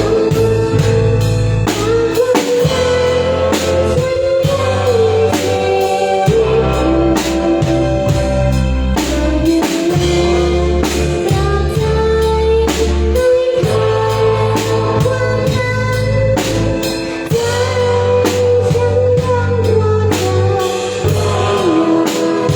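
A live band playing a song with drum kit, bass and a melody line, at a sound check.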